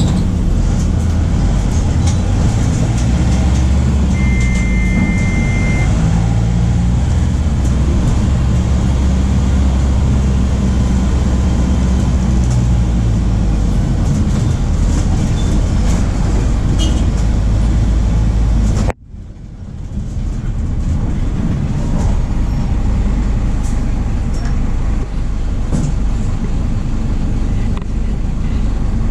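MAN D0834 four-cylinder diesel engine of a VW 17.230 OD bus running, a deep low rumble whose pitch shifts as the bus changes speed. An electronic beep lasts about two seconds, starting about four seconds in. The sound cuts off abruptly about two-thirds of the way through, then comes back as a quieter, less rumbling engine sound.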